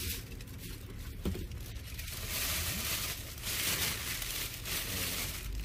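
Thin white plastic carrier bag rustling and crinkling as it is handled close up, loudest through the middle of the stretch.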